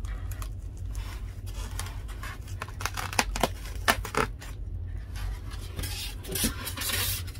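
Styrofoam packing being pulled out of a cardboard box and handled: a run of scrapes, rubs and sharp knocks, thickening into a stretch of rustling about five seconds in.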